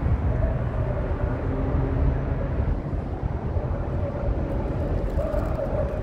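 Steady, rough low rumble of open-air noise high above the city, with faint held tones in the middle range coming and going.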